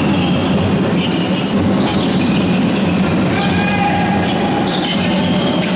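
Basketball game on a hardwood gym floor: sneakers squeaking in short sliding squeals, mostly in the second half, with a few sharp knocks of the ball bouncing over the steady din of the hall.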